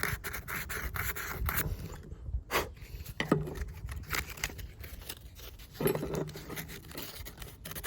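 Sandpaper rubbing over a steel part of Felco No. 2 pruning shears in short, irregular scratchy strokes, scouring off surface rust.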